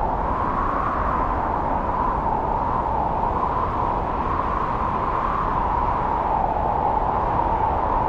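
Snowstorm wind blowing hard through forest trees. It makes a steady rush with a low rumble underneath, and its pitch slowly rises and falls.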